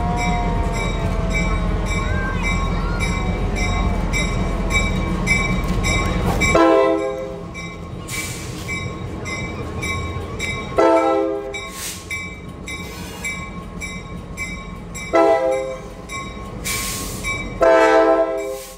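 Diesel locomotive creeping past at low speed with its bell ringing steadily. A heavy engine rumble and a few wheel squeals come first, then four short horn blasts a few seconds apart, the last one longer.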